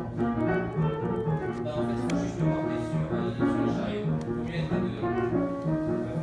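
Instrumental music: a continuous run of pitched notes and chords.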